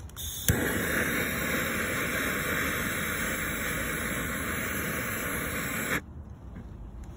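Handheld gas torch: a click about half a second in, then its flame hissing steadily for about five seconds before cutting off suddenly. It is lighting the wood chips at the base of a cold-smoke generator.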